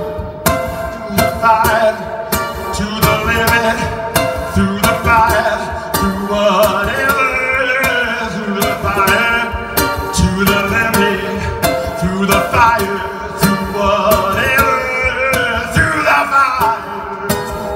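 Live ukulele strummed in a steady rhythm with a voice singing over it, heard from the audience.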